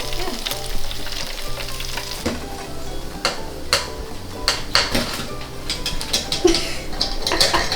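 Chicken wings deep-frying in hot oil, sizzling steadily, with a run of sharp clicks and knocks that grows busier from about two seconds in.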